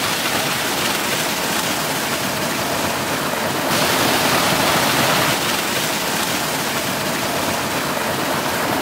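Water from an electric tube well pouring out of its outlet pipe in a thick stream into a concrete tank: a steady splashing of falling water, a little louder about four seconds in.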